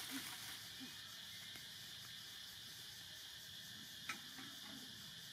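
Faint, steady high hiss of outdoor background noise, with one short, sharp click about four seconds in.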